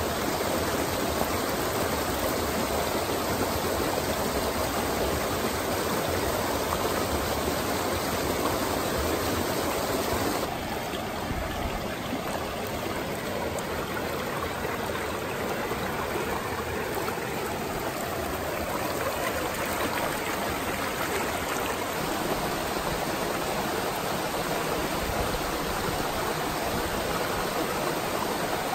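Small rocky mountain stream running over riffles and little cascades, a steady rush of water. About ten seconds in it turns slightly quieter and duller.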